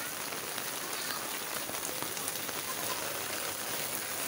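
Steady rain falling on a wet concrete lane, an even hiss of drops throughout.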